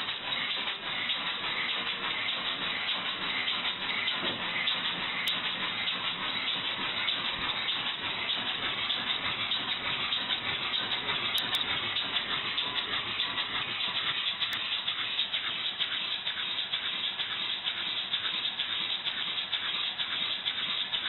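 Homemade compressed-air engine running: a steady hiss of compressed air with a fast, even pulse of exhaust puffs.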